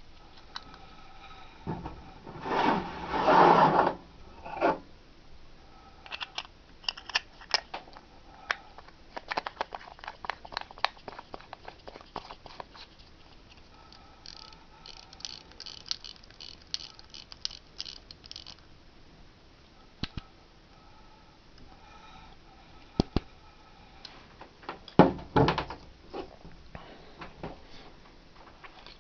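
Hands handling antique metal pocket watches: a loud scrape about three seconds in, then irregular runs of small clicks and taps, with a couple of louder knocks near the end.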